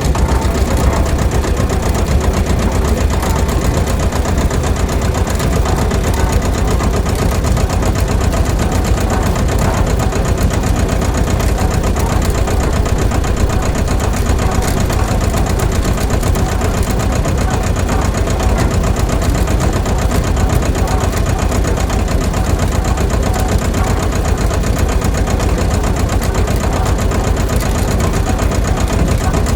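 A small motor running steadily at an even speed, with a fast, fine rattle.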